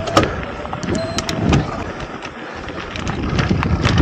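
Mountain bike riding fast down dirt singletrack: tyres rolling over the trail, with frequent clicks and rattles from the bike over bumps. A brief thin whine sounds about a second in.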